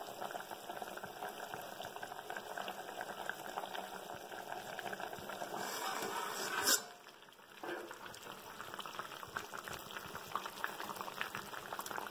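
Thick tamarind-and-onion curry simmering in a steel pan, bubbling and popping softly. A little past halfway there is a brief sharp clink as the steel lid is moved aside, then the bubbling goes on.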